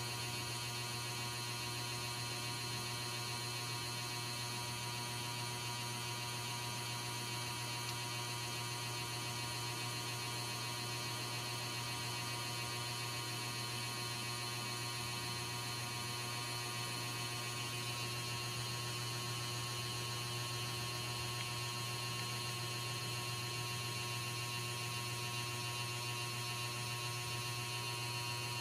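Steady low electrical hum with a faint high whine above it, unchanging throughout.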